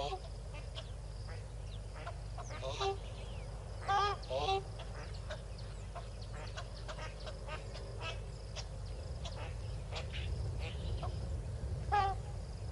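Yellow-billed duck quacking: a handful of short calls, the loudest about four seconds in and again near the end, over many faint short high chirps.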